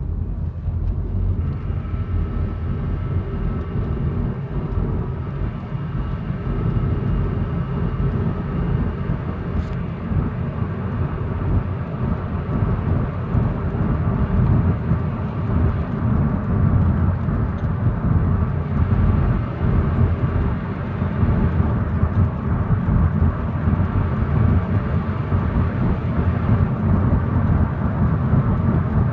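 2000 Honda Accord LX running, a steady low rumble with a faint steady whine above it: the grinding noise that the car makes only on acceleration, its cause unknown to the owner.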